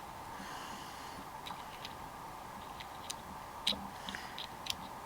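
Quiet handling of small plastic items as an SD card is fetched for the camera: a brief soft rustle, then a handful of sharp little clicks and taps, the loudest nearly four seconds in.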